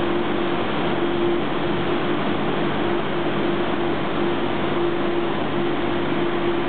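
Renfe Civia electric multiple unit standing at the platform, its onboard equipment running with a steady, noisy hum and a steady mid-pitched tone that drops out now and then.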